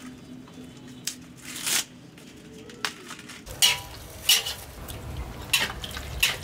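A series of sharp snaps and cracks, about seven over six seconds, with quieter rustling handling between them and a low rumble from about halfway through.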